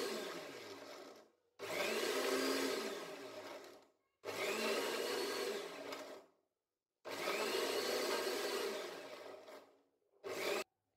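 Electric mixer grinder with a steel jar run in short pulses, chopping tomatoes coarsely: several runs of about two to three seconds with brief pauses between, the motor's whine rising as it spins up and falling as it coasts down each time, and a last very short pulse near the end.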